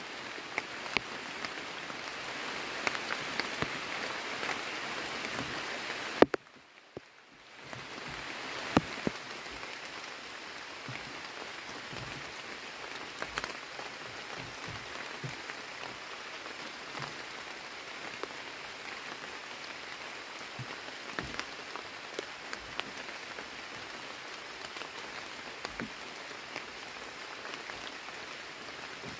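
Steady rain falling on rainforest foliage, with scattered louder drops ticking. About six seconds in the sound cuts off sharply for a second or two, then the rain resumes.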